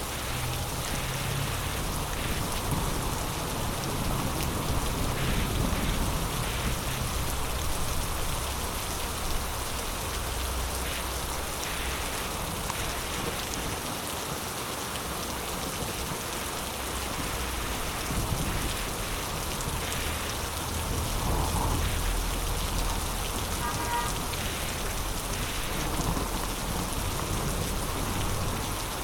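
Heavy rain pouring steadily, an even hiss of drops on surfaces, with a low rumble underneath that swells and fades.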